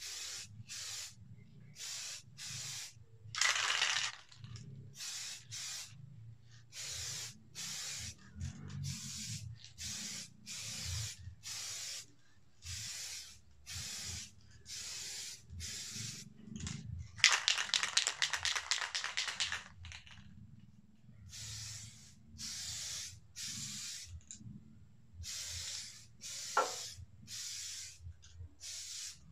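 Aerosol spray paint can sprayed in short hissing bursts, roughly one a second, as a motorcycle gas tank is painted. Partway through comes one longer, rattling burst lasting a couple of seconds, and near the end a brief falling squeak.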